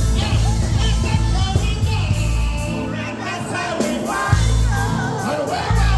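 Dancehall song playing: a sung vocal over a heavy, pulsing bass line.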